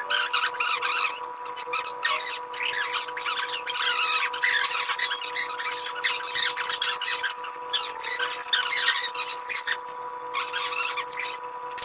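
Barber's scissors snipping through hair in quick runs of cuts, with short pauses between runs.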